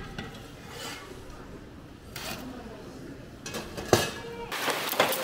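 Pots and utensils clattering, with a sharp knock about four seconds in and a louder stretch of noise near the end.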